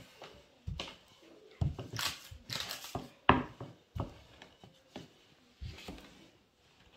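Wooden rolling pin rolling out a thin sheet of dough on a wooden pastry board: irregular rubbing strokes and light knocks of the pin against the board, the sharpest knock about three seconds in.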